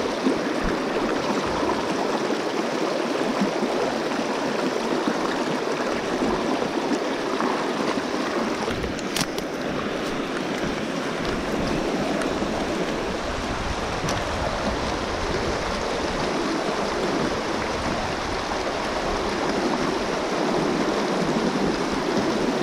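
Shallow, rocky mountain trout stream rushing steadily over stones and through riffles.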